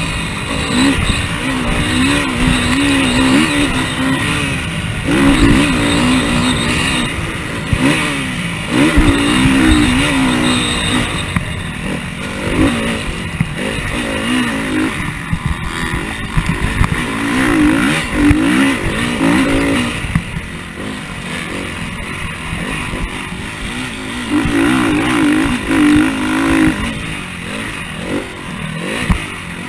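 KTM motocross bike's engine heard onboard, revving up and dropping back again and again as the rider accelerates, shifts and shuts off around a dirt track. A constant low rumble of wind and knocks from the bumps runs underneath.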